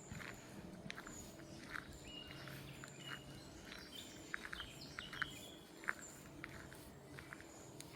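Small birds chirping with short high notes throughout, over footsteps of someone walking along a path.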